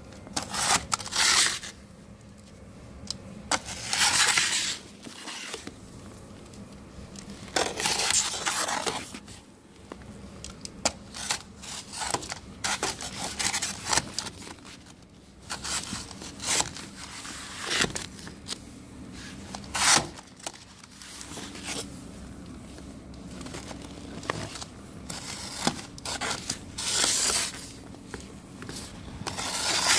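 Snow shovel scraping and pushing snow across wooden deck boards in repeated strokes every few seconds, with a few sharp knocks of the blade on the boards.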